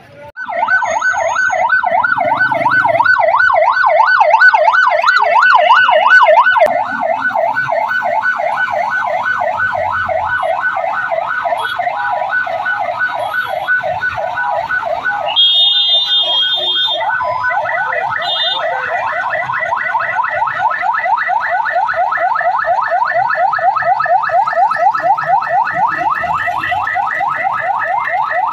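Electronic siren of a Rescue 1122 fire engine sounding a fast warbling yelp, about four rises and falls a second. It stops briefly about halfway, with a short higher tone, then starts again.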